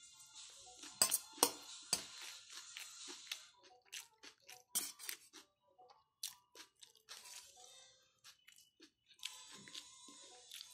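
Steel spoon scraping and clicking against a steel plate while scooping rice: a series of sharp, irregular clicks, the loudest about a second in, over faint background music.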